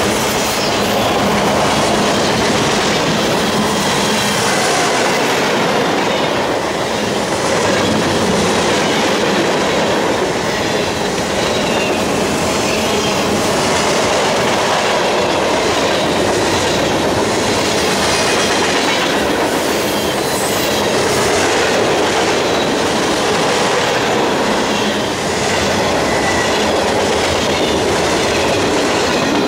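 Freight cars of a mixed freight train rolling past at close range: a steady, loud rumble of steel wheels on rail with a clickety-clack over the rail joints.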